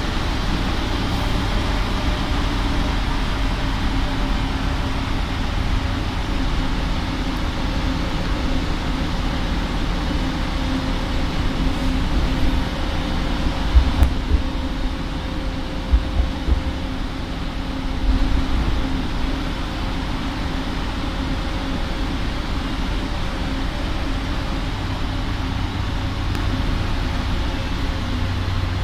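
Inside a Karosa B741 articulated city bus on the move: steady engine drone with a faint whine and low road rumble. A few short knocks and rattles come about halfway through.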